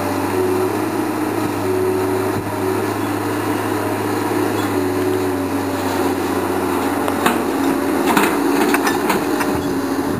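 Komatsu PC220 hydraulic excavator's diesel engine running steadily while it digs. A higher tone comes and goes several times, and a few sharp knocks are heard in the last few seconds.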